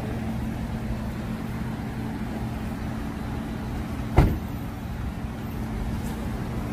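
Car door of a silver Ford Taurus sedan slammed shut once, about four seconds in, over a steady low engine hum.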